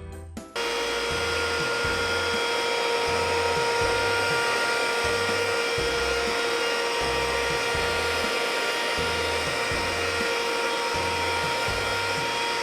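Black & Decker 18-volt cordless stick vacuum switched on about half a second in, its motor running with a steady whine. Background music with a regular bass beat plays underneath.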